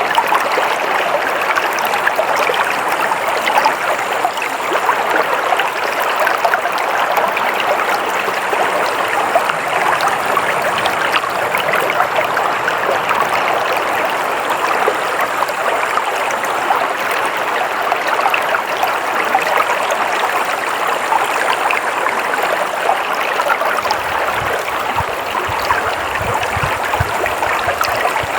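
Water flowing steadily in a continuous rushing, splashing stream. A low rumble joins it near the end.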